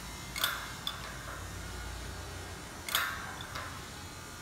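Steel jacking test rig under rising load: two sharp metallic clanks with a brief ring, about two and a half seconds apart, each followed by a fainter tick, with a low rumble between them.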